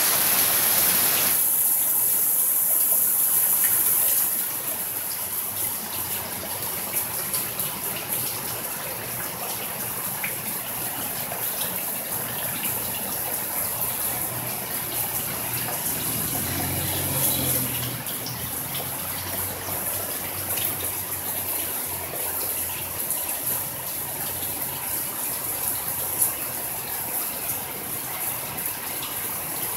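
Heavy rain pouring down steadily, louder for the first four seconds or so. A brief low rumble comes about halfway through.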